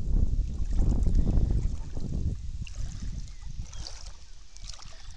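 Wind buffeting the camera microphone in gusty low rumbles, dying down about halfway through.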